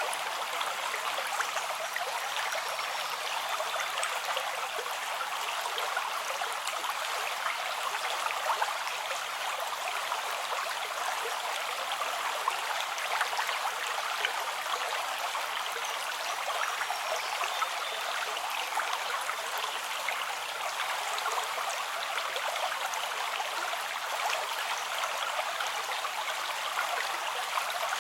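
A stream of running water flowing steadily, an even, continuous rush.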